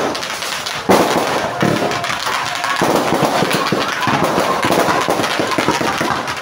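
Fireworks and firecrackers going off in a dense, continuous crackle of pops, with a loud bang about a second in.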